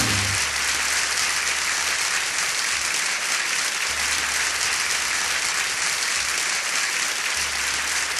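Audience applauding at the end of a live song, steady throughout and cut off abruptly near the end.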